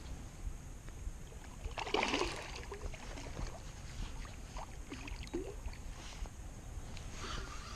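Water sloshing and splashing, loudest about two seconds in, over a steady low rumble.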